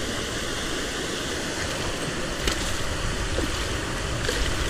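Steady rush of water pouring over a shallow, rocky creek spillway.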